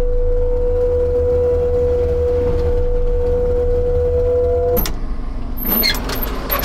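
Shearex forestry drum mulcher on a Takeuchi compact track loader, fitted with knives, running at full speed and shaving into an ash log: a steady high whine from the spinning drum over the loader's deep diesel rumble. The whine and rumble cut off abruptly about five seconds in, followed by a few sharp knocks and clatter.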